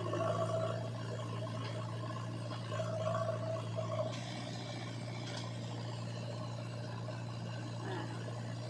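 Heavy diesel engine running steadily with a low hum, swelling briefly at the start and again about three to four seconds in.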